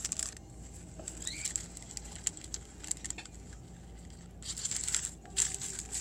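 Paper cupcake liners crinkling and rustling as they are handled and threaded onto a plastic straw, in short crackly spells at the start and again in the last second and a half, quieter in between.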